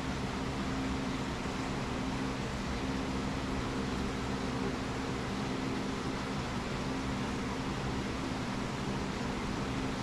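Steady machine hum with a low tone and a constant hiss, unchanging throughout.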